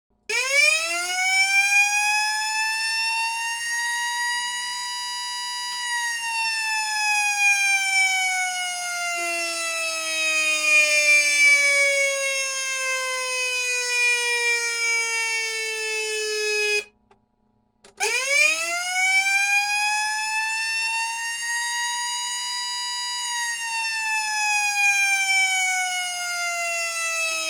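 Whelen 295-series siren playing its original "Q" simulated mechanical siren tone. The wail winds up over about six seconds, then slowly winds down, and cuts off abruptly. After about a second's pause it winds up again and begins another slow wind-down.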